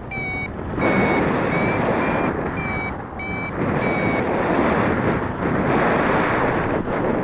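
Paragliding variometer beeping, short high beeps about twice a second, the tone it gives while the wing is climbing in lift. Under it, heavy wind rushing over the microphone.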